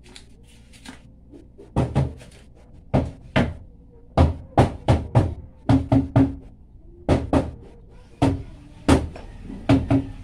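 Hammer driving nails into plywood formwork: a run of about seventeen sharp blows at uneven spacing, some in quick pairs, beginning nearly two seconds in, several with a short ring.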